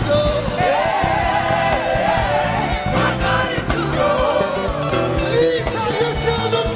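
Gospel praise music with a choir and congregation singing together over a live band's bass and drums.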